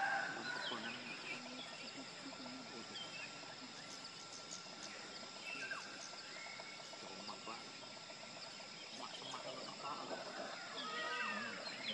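Outdoor rural ambience: scattered bird chirps and calls over a faint steady high whine, with louder calls right at the start and again near the end.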